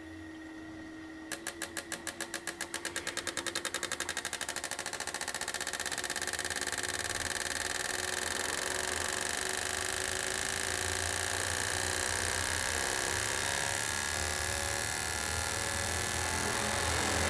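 Fuel injector test bench pulsing a set of four injectors in a flow test: the solenoid clicks start about a second in, speed up over the next few seconds and merge into a steady buzz with a hiss of spray.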